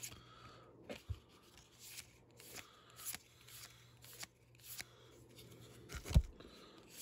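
Pokémon trading cards flipped through by hand, each card slid off the front of the stack with a soft flick, about twice a second. A louder low thump comes about six seconds in.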